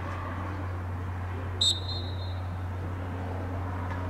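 Referee's whistle: one short, sharp blast about one and a half seconds in, over a steady low hum and outdoor field background.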